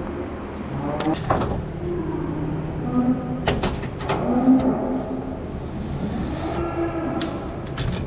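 Sharp clicks and knocks of plastic and metal parts being handled as the bottom cap is worked off a milking parlor's vacuum take-off cylinder, over a steady barn hum. Cows moo a few times in the background.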